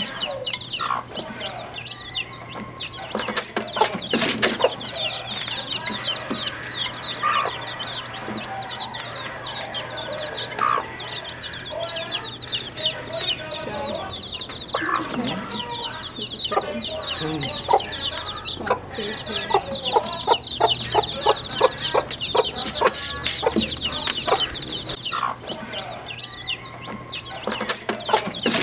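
A brood of chicks peeping in a constant run of short, high, falling chirps, with a mother hen clucking lower among them.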